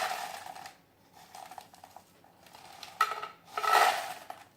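Popcorn-making sound effect: small hard pieces rattling against metal kitchenware in two loud bursts, near the start and about three seconds in, with scattered clicks between.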